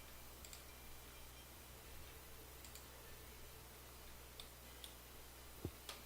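A few faint, sparse computer mouse clicks over near silence, with a low steady hum underneath.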